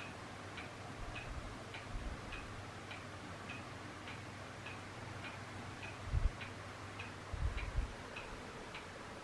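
Electric fan running with a steady low hum, over which a regular light ticking repeats a little under twice a second. A few soft low thumps come about six and seven and a half seconds in.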